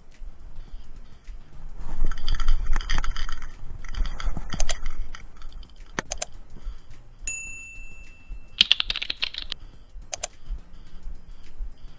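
Sound effects of an on-screen subscribe-and-comment animation over background music: clattering keyboard typing, sharp mouse clicks, and one held notification chime partway through.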